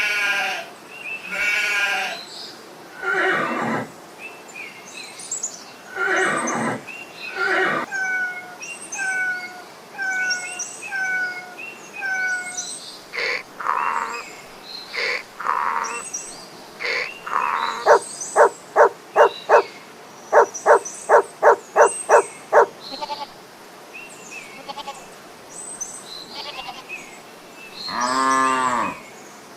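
Farm animals calling: a string of bleats and other short livestock calls, including a row of short falling cries and two runs of fast, even pulsing calls about two-thirds of the way through.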